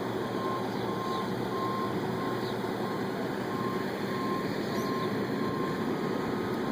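Backup alarm of a heavy road-construction vehicle beeping steadily at one pitch, about one and a half beeps a second, over the continuous running noise of asphalt-milling machinery and trucks.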